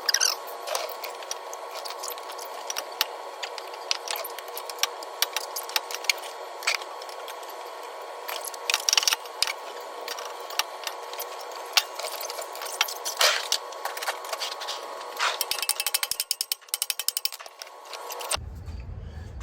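Metal hand tools clinking and rattling against the exhaust under a 1996 Jeep Cherokee as it is being removed, with quick runs of clicks, over a steady background hum. Near the end the sound cuts to a low hum.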